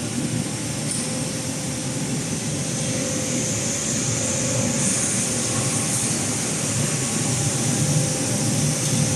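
GXG-25 stainless steel tube welding mill running: a steady mechanical rumble with a faint steady hum and a high hiss.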